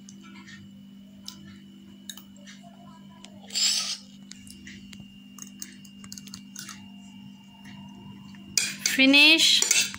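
Metal spoon clinking and scraping lightly on a ceramic plate as the last noodles are scooped up, over a faint steady hum, with a brief louder noise about three and a half seconds in. Near the end a child's voice loudly says "finish".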